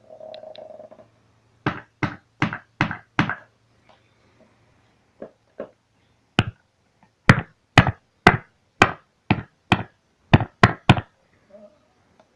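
Sharp knocks from tapping on a stringless guitar's body over its pickup, played through a small guitar amplifier turned up high. They come in quick runs of several, with a steady low amplifier hum underneath for the first half.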